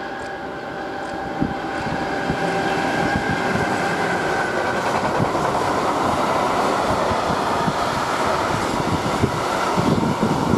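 Electric locomotive hauling an intermodal freight train of pocket wagons loaded with semitrailers, rolling past: a steady rumble that builds over the first couple of seconds, with a high whine in the first half. Rhythmic wheel clatter starts near the end.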